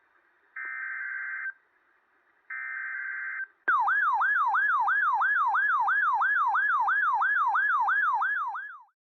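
Two roughly one-second bursts of Emergency Alert System SAME header data tones, a second apart, then a loud siren-like alert tone that sweeps up and down about three times a second for about five seconds before cutting off.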